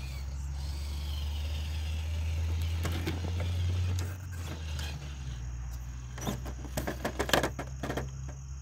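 Traxxas TRX-4 radio-controlled rock crawler driving and starting to climb a plastic slide ramp. A steady low hum drops after about four seconds, then a run of clicks and scrapes follows as the tyres and chassis grip and rub on the plastic.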